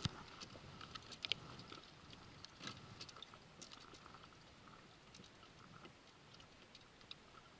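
Faint, scattered clicks and light taps from a squid-metal rod and reel being handled as the jig is shaken near the bottom, a little stronger about a second and again nearly three seconds in.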